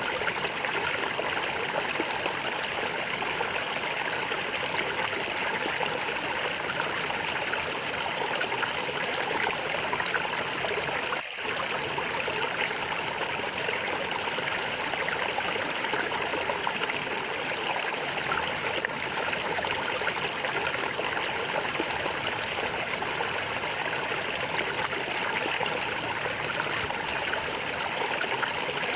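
Stream water flowing and gurgling steadily over stones, an even rushing trickle with one momentary dropout about a third of the way through.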